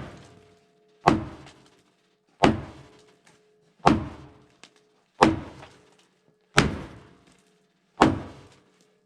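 Six heavy strikes on a John Deere D6 dozer's steel blade, about one and a half seconds apart, each with a faint metallic ring. The blows are driving out frozen dirt packed into the blade.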